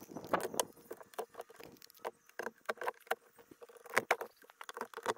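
Irregular light clicks, taps and rustles of a Caldwell chronograph being set up by hand, its metal rods and plastic sky screens pushed into place, with a louder pair of clicks about four seconds in.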